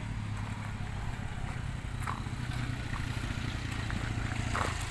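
A small petrol engine running steadily at an even, unchanging pitch, with a few faint light clicks.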